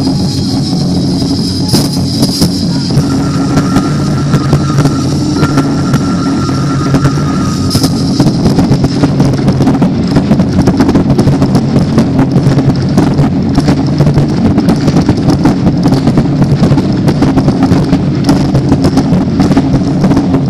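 Live taiko-style ensemble drumming over a steady backing of music. About eight seconds in, the hits turn into a dense, rapid, louder beat.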